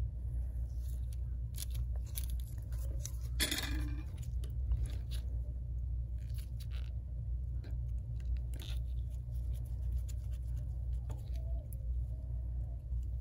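Scattered small clicks and scrapes of a metal back plate and a small screwdriver tip being worked against a phone screen's frame, with a brief louder scrape about three and a half seconds in, over a steady low hum.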